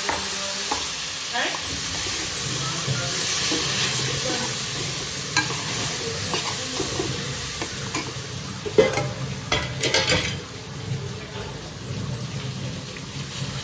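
Metal spoon stirring and scraping vrat rice, potatoes and tomatoes around a kadai, over a steady sizzle of frying. A quick run of louder clinks and scrapes comes about nine to ten seconds in.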